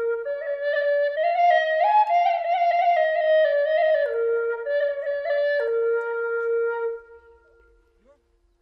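A flute-like wind instrument playing a slow melody of held notes that step up and down in pitch, stopping about seven seconds in.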